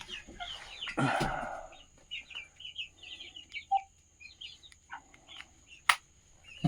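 Backyard hens clucking with short, high chirping calls, many in quick succession, with a louder noisy burst about a second in and a single sharp click near the end.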